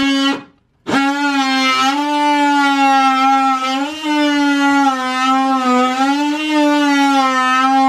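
Cordless drill motor running steadily under load as it bores through the floor of a sink cabinet: a sustained whine with slight dips in pitch. It cuts out briefly about half a second in, then runs on.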